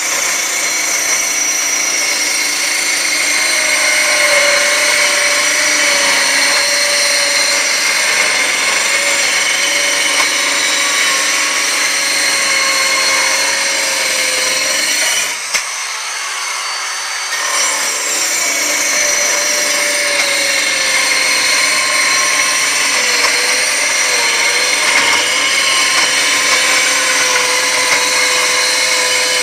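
Portable 5-inch circular saw cutting wood along the grain: a steady motor-and-blade whine under load. About halfway through it eases off briefly, then the pitch drops as the blade bites into the wood again.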